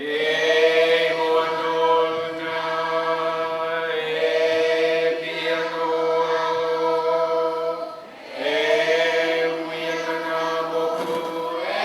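A group of voices chanting long held notes without accompaniment, in three phrases of about four seconds each, with a brief break before each new phrase.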